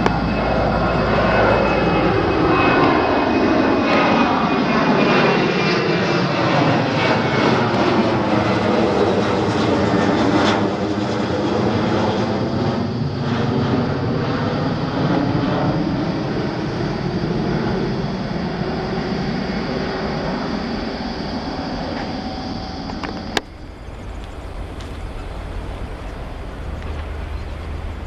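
Twin-engine jet airliner climbing out directly overhead after takeoff: engine noise that swells and then fades, with a swirling, sweeping sound as it passes over. About 23 seconds in, it cuts suddenly to a quieter, steady, distant jet rumble.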